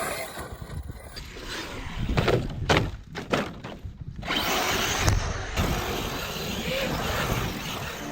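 Large 6S brushless electric RC truck driving over sand, with a run of knocks and thuds in the middle as it bounces and lands.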